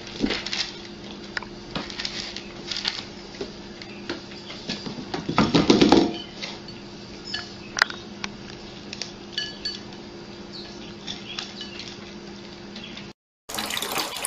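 Dry cat food and white ceramic bowls clinking and rattling as two cats eat, in scattered small clicks over a low steady hum, with a louder clatter about five and a half seconds in. Near the end, after a short break, a tap runs water into a sink.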